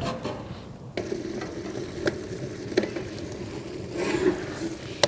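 Utensil stirring food in a cooking pan, scraping with a few sharp clicks against the pan and a longer scrape near the end, over a light sizzle.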